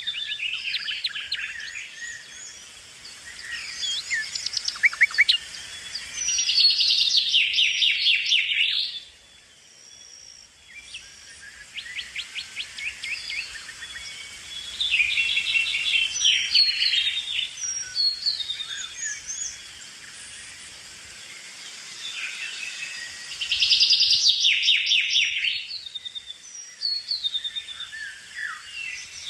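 Several songbirds singing and calling over one another: scattered high chirps and whistles, with three louder stretches of rapid trilled song.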